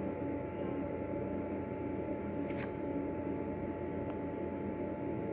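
Steady low hum and hiss of room background noise, with a couple of faint scratches of a pen writing on paper.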